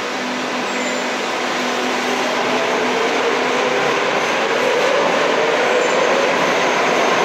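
Madrid Metro Serie 5000 electric train pulling out of an underground station and gathering speed: steady rumble of wheels on rail that grows louder, with the traction motors' whine rising in pitch from about three seconds in.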